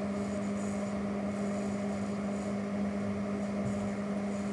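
Steady background hum with a strong low tone and an even hiss under it, unchanging throughout.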